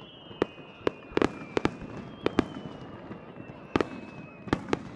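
Fireworks shells bursting in the sky: a quick, irregular run of about ten sharp bangs, some in close pairs.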